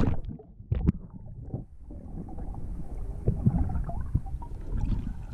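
Underwater sound picked up by a submerged camera: muffled water movement with scattered bubbly clicks and ticks. The sound turns suddenly dull and quieter at the start as the camera goes under, and two sharp clicks come about a second in.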